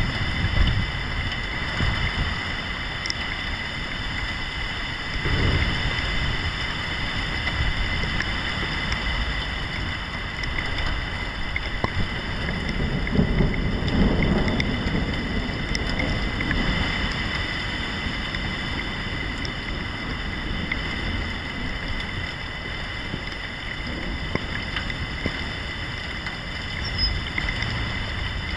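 Thunderstorm: steady rain with rolling thunder, a short low rumble about five seconds in and a longer one around the middle.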